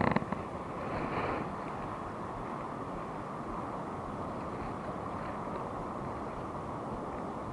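Steady rush of wind and shallow sea water on a body-worn camera's microphone, louder for a moment at the start and again about a second in.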